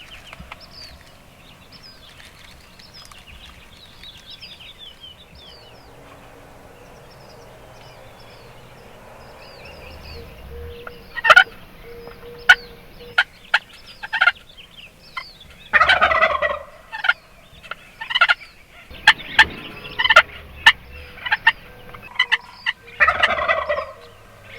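Wild turkey toms gobbling on the roost: after a quiet stretch, loud rattling gobbles begin about halfway through and come again and again, several close together.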